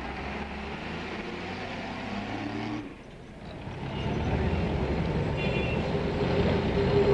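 Street traffic sound: a steady low engine-like hum that breaks off about three seconds in, followed by the louder, rougher rumble of a double-deck electric tram running along its street tracks.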